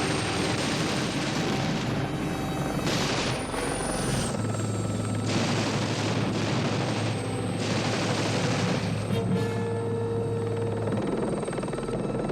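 Film soundtrack of a helicopter in flight, a loud, dense rotor-and-engine sound that swells and eases in several stretches, with music underneath.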